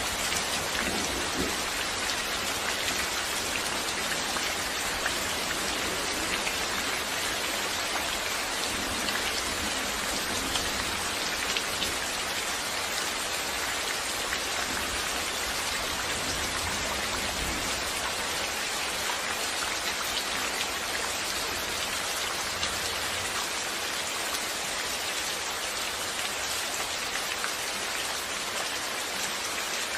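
Steady rain falling, a dense even hiss with many individual drops pattering on surfaces.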